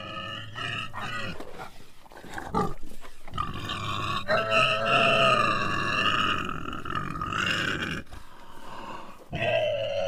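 Dinosaur roar sound effect for a Brachiosaurus: a series of drawn-out, pitched animal calls, the longest lasting about four seconds in the middle and another starting near the end.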